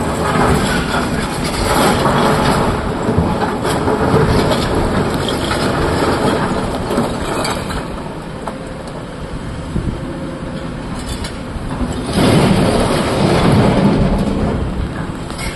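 SANY excavator's bucket scraping and grinding through broken quarry rock over its running diesel engine. About twelve seconds in comes a loud clatter of rocks as the bucket dumps its load into the dump truck's tipper body.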